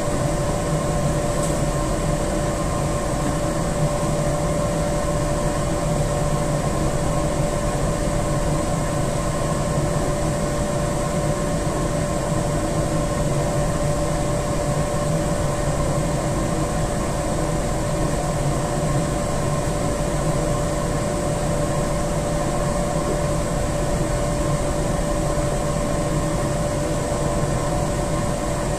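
Boiler-room machinery running: a steady mechanical hum of fans and motors with a constant whine.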